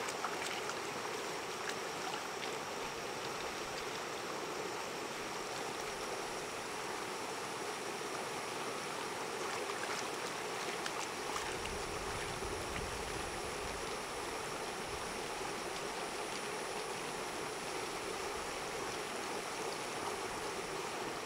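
Steady rushing noise like running water, with a few faint clicks and a brief low rumble about twelve seconds in.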